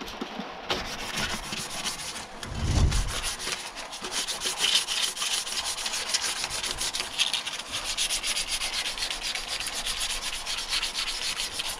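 Hand wet-sanding of an alloy wheel rim's edge with 600-grit wet and dry paper: quick, steady back-and-forth rubbing strokes, flatting and feathering the repair smooth before paint. A dull low bump comes about three seconds in.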